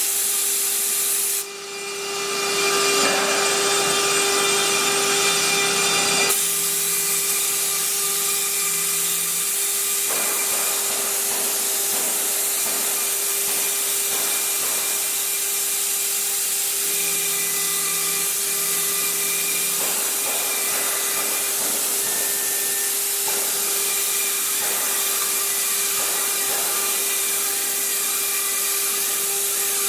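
6090 CNC router's spindle running with a steady whine while its bit cuts wood, a continuous rough cutting noise under it. The level dips briefly about a second and a half in, then picks up again.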